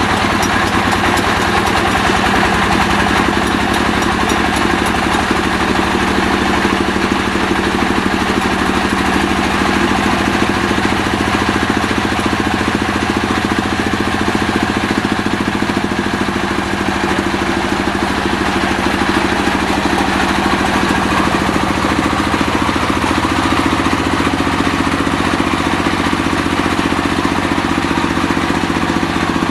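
Stationary single-cylinder diesel engine running steadily at a constant speed, turning a multi-V-belt pulley drive.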